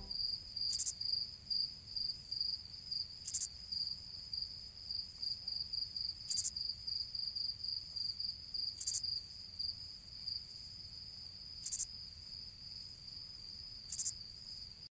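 Insects chirping: a steady, finely pulsing high trill of the cricket kind, with a short, louder, sharper high buzz six times, every two to three seconds.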